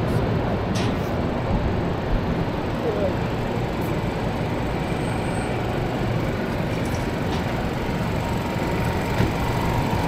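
Busy city street ambience: a steady low rumble of traffic with indistinct voices of passers-by.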